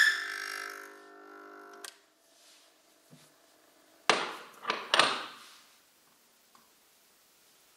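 Oil film testing machine stopping under its load of weights: the squeal of the test sample rubbing cuts off at once, and the electric motor winds down with a fading hum for about two seconds, ending in a click. A few brief clattering knocks follow about four seconds in.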